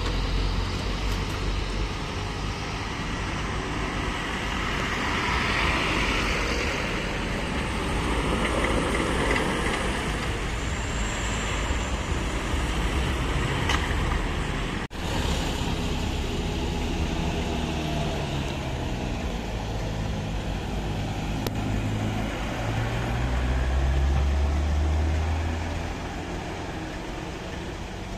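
Road traffic passing at speed, then a heavy vehicle's engine pulling hard, its pitch climbing and dropping in steps as it changes gear, loudest about three-quarters of the way through.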